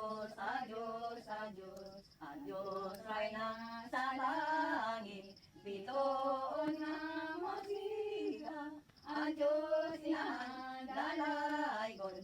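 Women singing a slow Cebuano devotional hymn to the Virgin Mary, in long held phrases with short breaks between them.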